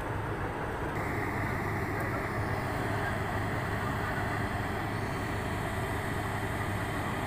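Engine running steadily with a low hum, joined about a second in by a thin, steady high whine.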